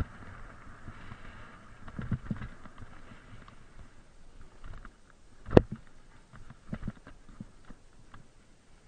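Mountain bike descending a rough dirt trail, with irregular knocks and rattles as it runs over bumps, a light hiss over the first few seconds, and one sharp, loud knock about five and a half seconds in.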